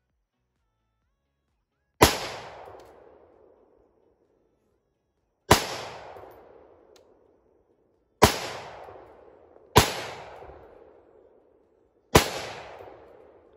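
.308 semi-automatic AR-style rifle fired five times in single, unevenly spaced shots, each crack followed by an echo that dies away over a second or two.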